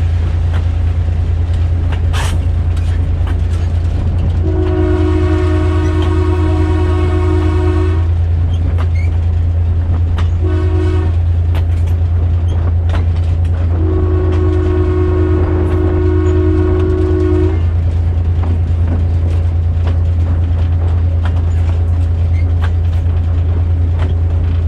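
Diesel locomotive horn, the GMD-1's, blowing a long, a long, a short and a long blast: the grade-crossing signal. Under it run the steady low rumble of the moving train and scattered clicks from the rails.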